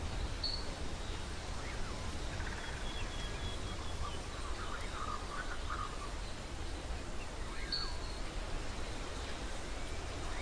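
Outdoor ambience: a steady low rumble with a few short bird chirps, one about half a second in and another near eight seconds, and faint birdsong between them.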